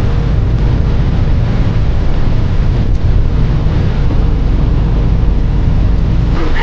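Loud wind buffeting the microphone over the steady low rumble of a river boat under way.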